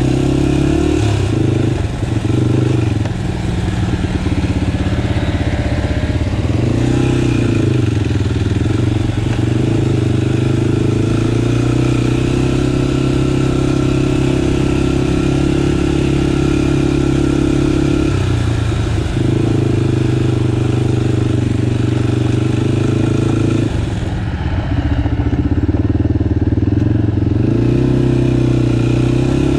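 Off-road vehicle engine running under steady throttle while being ridden, with a few brief let-offs where the pitch drops and then comes back.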